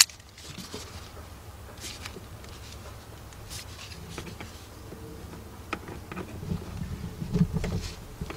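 Vice grips clicking and scraping against a spring hose clamp on a rubber intake hose, with gloved hands rustling as the clamp is squeezed and worked back. A sharp click right at the start, then scattered light clicks over a steady low rumble.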